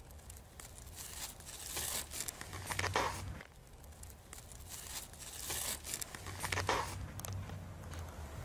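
Crackling and rustling handling noise from gloved hands working on the snowy ground, with a low rumble of wind on the microphone.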